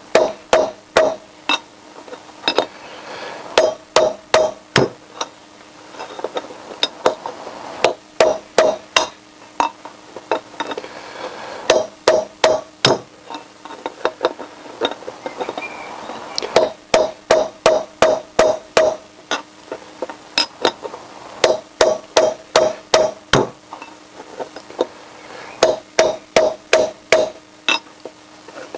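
Hammer blows on a steel drift set against a worn rear wheel bearing in the hub of a 1988 Honda CBR1000F motorcycle wheel, driving the old bearing out. Sharp metallic clinks in quick runs of four to six, about three a second, with short pauses between runs as the drift is moved around the bearing.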